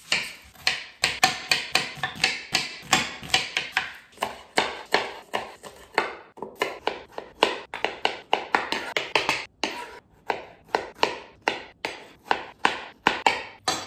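Chef's knife chopping red onion and then tomato on a wooden cutting board: quick, steady strokes at about three to four a second, each a sharp knock of the blade on the board, with short pauses between runs.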